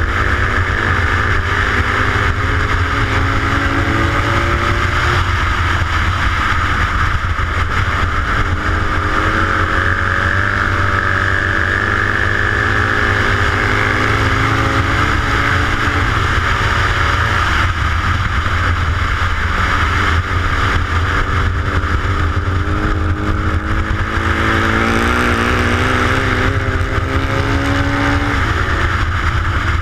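750 cc flat-track racing motorcycle engine heard from on board, running hard around a dirt oval. The engine pitch rises and falls as the rider throttles through the corners and down the straights.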